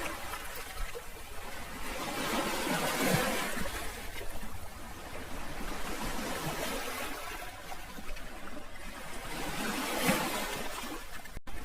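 Sea waves washing in and drawing back, the wash swelling and fading every few seconds (about three seconds in and again near the end). There is a momentary dropout to silence just before the end.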